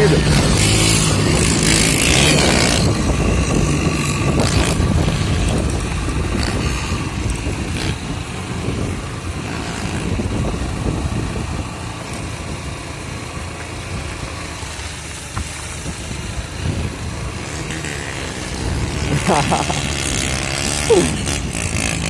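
Motorcycle running as it is ridden along, its engine note steady under a constant rush of noise.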